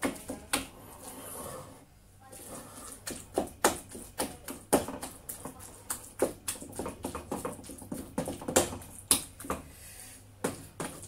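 A wooden spoon mashing potatoes and green peas in a stainless steel pot, knocking irregularly against the pot about one or two times a second.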